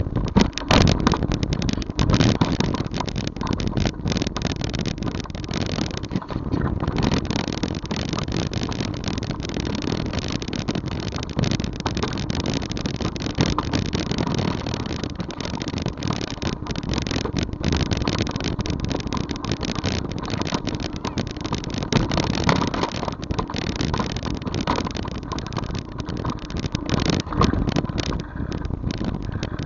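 Steady rumble and wind noise of travel along a rough, cracked road, with constant rattling knocks as the camera jolts over the surface.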